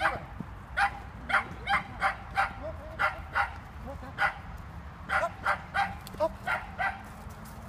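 Border collie barking in short, sharp barks, repeated throughout, often two or three a second with brief pauses between runs.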